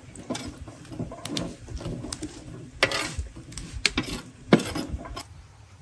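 Kitchenware being handled: dishes and utensils clinking and knocking in an irregular run of sharp strikes, the loudest a little past the middle.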